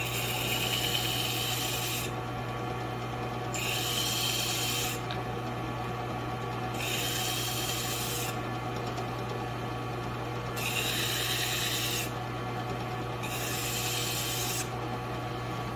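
Drill press motor running steadily, spinning a 320-grit sanding disc, while a small glued-up wooden part is pressed against the abrasive five times to flush-sand its sides. Each pass is a sanding hiss of about a second and a half over the motor's hum.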